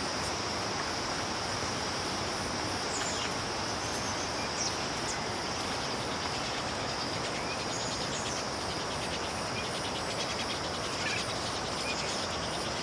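Steady, high-pitched drone of insects over an even hiss of steady rain, with a few faint, short bird chirps scattered through it.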